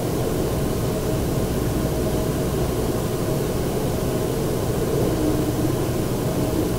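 Steady room noise: a constant hum and hiss, with a faint steady tone underneath.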